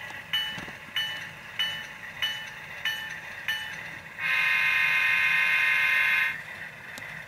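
Tsunami sound decoder in a model RS3 diesel locomotive, playing its bell at about one and a half strikes a second, then a single horn blast of about two seconds a little after the middle. The horn is the decoder's stock horn, not yet changed.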